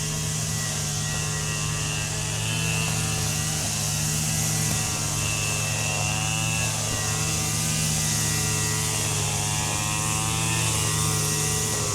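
A steady engine or motor hum, its pitch wavering slowly, over a constant hiss.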